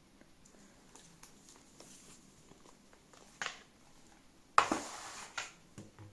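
Handling noises as the keyboard and its packaging are moved: faint scattered clicks, a sharp click about three and a half seconds in, then a louder knock followed by about a second of rustling.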